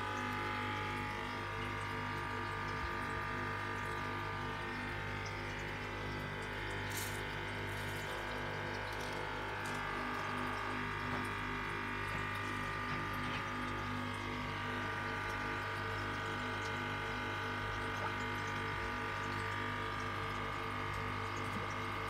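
Aquarium pump running steadily: a constant hum with several held tones, over the rush of moving water in the tank.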